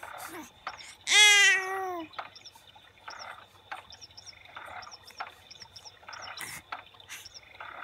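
A sheep bleating once, a single long wavering "baa" about a second in.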